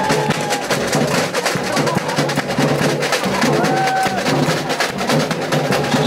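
Samba bateria playing a steady samba groove: tamborims clicking over surdo bass drums and snare drums, with a brief held tone about two-thirds in.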